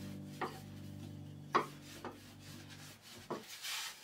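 Wooden rolling pin rolling dough out thin on a countertop: a dry rubbing with about four sharp knocks of the pin against the counter.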